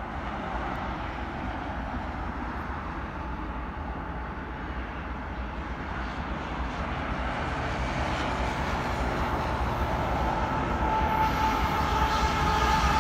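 Union Pacific freight train with diesel locomotives approaching: a steady rumble growing gradually louder, with a steady whine rising out of it over the last few seconds.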